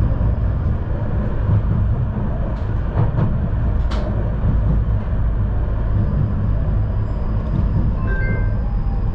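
Tram running along the track, heard from inside the car: a steady low rumble of wheels on rails, with a few sharp clicks about three to four seconds in.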